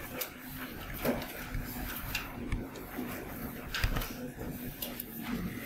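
Scattered light taps and clicks of a pen stylus on a writing tablet during handwriting, over a low steady background noise. The sharpest tap comes a little before four seconds in.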